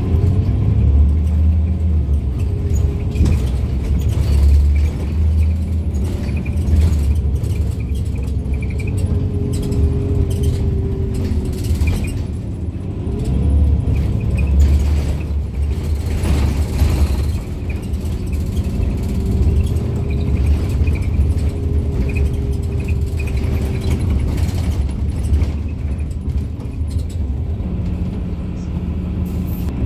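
Irisbus Citelis Line city bus with a Voith automatic gearbox driving, heard from inside the cabin: a deep, steady engine rumble with a drivetrain whine that rises and falls in pitch as the bus speeds up and slows.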